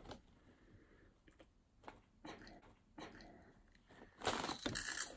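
A crunchy corn puff snack being bitten and chewed, a cluster of crunches about four seconds in, after a few faint rustles of the snack bag.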